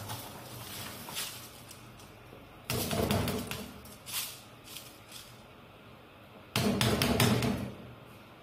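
Soaked rice tipped from a plastic colander into a pot of boiling stock: two sudden rushing pours about four seconds apart, each about a second long, with the colander knocking as it is shaken out.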